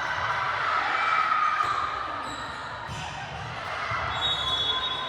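Balls bouncing on a gym floor, repeated low thuds over the echoing murmur of a crowd in a large hall.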